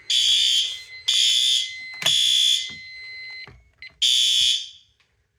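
Synchronized fire alarm horn strobes sounding in alarm from an activated smoke detector. They give three short horn blasts, a pause and a fourth blast in the temporal-3 evacuation pattern, then cut off about five seconds in. A thin steady high beep runs under the first few blasts.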